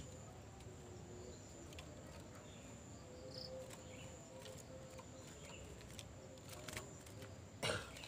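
Faint ambience: a steady high thin tone, with scattered faint clicks and a few soft chirps. A loud sharp knock or scrape comes near the end.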